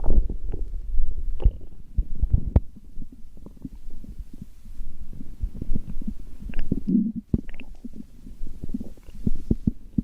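Human stomach growling: a run of low, irregular gurgles and bubbly pops, with a brief low-pitched groan past the middle.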